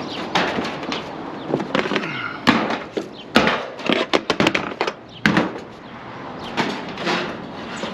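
Roofing materials being handled on a roof: a string of irregular knocks, scrapes and crinkling, thickest in the middle few seconds.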